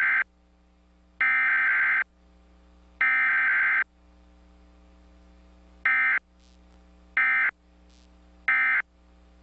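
Emergency Alert System digital header sent over a TV broadcast: harsh, raspy buzzing data bursts, each under a second long and about a second apart. The first ends just after the start and two more follow. A few seconds later come three short end-of-message bursts, part of an EAS test.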